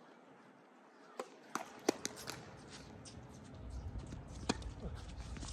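Scattered sharp knocks of tennis play on a hard court: tennis ball and racket impacts with footsteps, a quick cluster of them about two seconds in and a single knock near the end. A low rumble comes in about halfway through.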